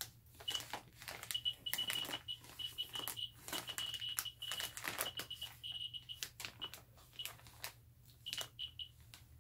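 Radiation survey meter clicking rapidly and irregularly as its probe is held against a bag of high-grade uranium ore: a high count rate. From about a second in, a high-pitched beeping tone comes and goes, with some crinkling of the plastic bag as the probe presses on it.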